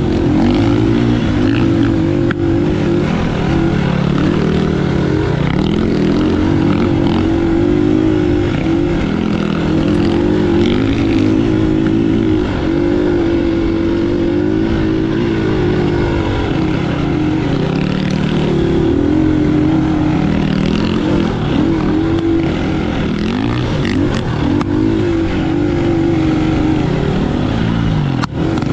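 A vehicle engine running under way, its revs rising and falling continuously as it is driven.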